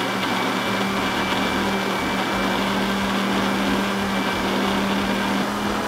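Countertop blender running at a steady speed with an even hum, blending an açaí, banana and water shake to a smooth liquid.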